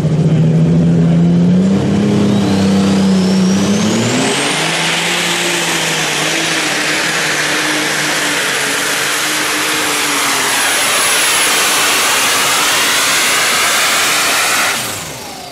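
Unlimited super stock pulling tractor's turbocharged diesel engine throttling up. A turbo whine rises in pitch over a couple of seconds to a high steady scream and holds at full power through the pull, then cuts off suddenly near the end as the throttle comes off.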